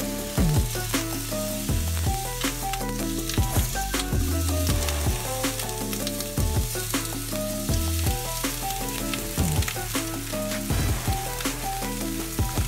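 Scallops, turban shells and slices of mountain yam sizzling on a robatayaki grill, with the turban shell's juices bubbling in the shell. Background music with a steady beat plays over the sizzling.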